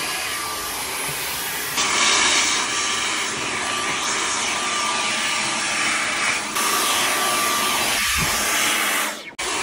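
Cordless stick vacuum running with a crevice tool on carpeted stairs: a steady rush of suction with a faint whine. It steps louder about two seconds in and drops out for a moment near the end.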